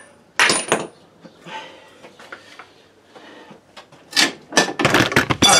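Clunks and rattles of metal hand tools being handled in the engine bay: a knock about half a second in, a few light ticks, then a run of clattering knocks near the end.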